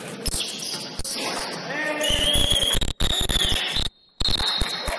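Basketball game on a gym court: sneakers squeaking, a ball bouncing and players' voices. The audio briefly drops out twice, around the middle.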